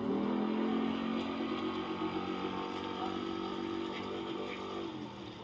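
An engine running with a steady drone that sets in just as the sound begins and dies away about five seconds later.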